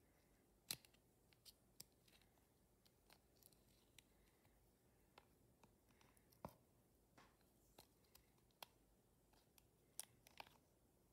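Faint, sticky clicks and pops of fingers pressing and poking into glossy slime, scattered irregularly, with a sharper pop about a second in, another past halfway and one near the end.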